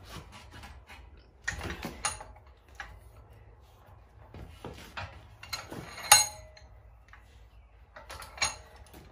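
Iron clanking and clinking as a forged screw shank is levered in a post vise with blacksmith's tongs to straighten it: irregular knocks, a cluster at about a second and a half and two seconds in, and the loudest, a ringing clank, about six seconds in.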